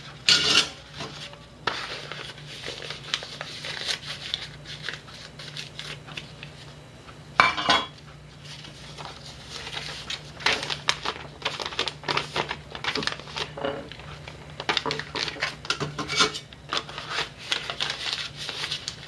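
Thin fluted metal baking molds clinking and scraping against each other as they are handled, with brown kraft paper rustling as greased squares are pressed into them. One louder clank comes about seven and a half seconds in, over a faint steady low hum.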